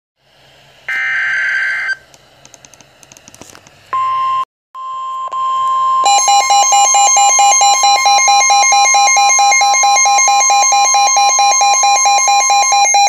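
Midland weather alert radio sounding a severe thunderstorm warning. A brief buzzing data burst about a second in is followed by the broadcast's steady alert tone starting near 4 s. From about 6 s the radio's own loud, rapidly pulsing alarm beeps over the tone.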